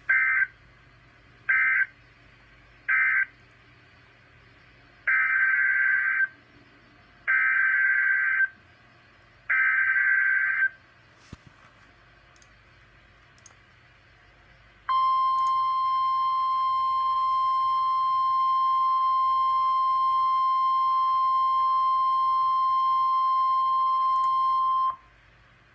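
Emergency Alert System data on NOAA Weather Radio. First come three short bursts of SAME digital data, the end-of-message code. Then three longer SAME header bursts, then the 1050 Hz weather alert tone, held steady for about ten seconds before cutting off.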